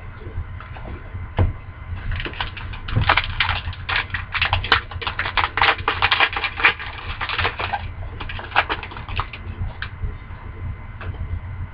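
Rapid crackling and clicking from a pack of hockey cards being handled and opened, most intense from about two to eight seconds in, over a steady low hum.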